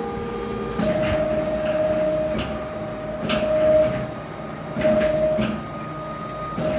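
Stepper motors of a large CNC router whining as the gantry drives a pen across the sheet, the tone stopping and restarting every second or so between strokes, with a few faint clicks.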